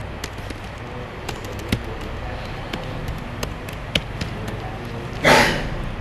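Computer keyboard keys being typed, a scattering of faint, irregular clicks over a steady low hum. Near the end comes a short, louder rush of noise.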